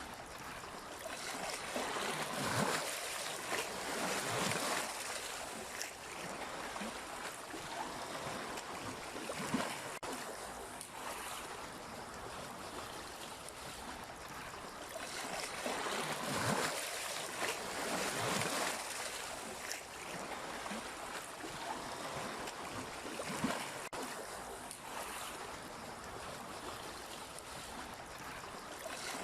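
Sea waves washing in and drawing back, a steady rush that swells and fades in slow surges, the strongest a few seconds in and again a little past halfway.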